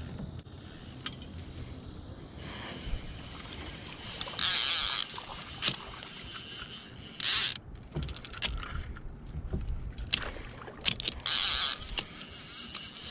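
Fishing reel drag paying out line in three short, loud buzzing bursts, with light clicks in between, as a big hooked blue catfish pulls against it.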